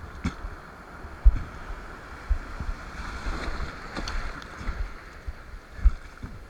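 Ocean water rushing and splashing, with wind buffeting the microphone in irregular low thumps.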